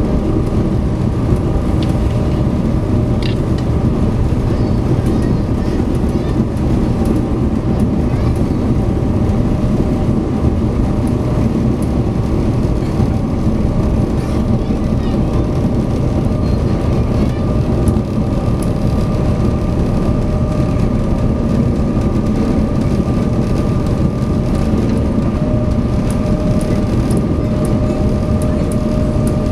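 Steady drone of the SeaBus passenger ferry's engines and propulsion underway: a constant low rumble with several steady humming tones over it.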